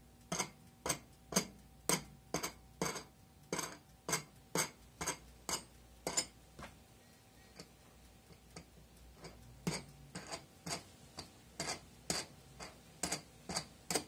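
Metal wing nuts being turned down by hand on the threaded studs of a metal mold frame, a run of sharp clicks about two a second. The clicks pause for about three seconds midway, then start again.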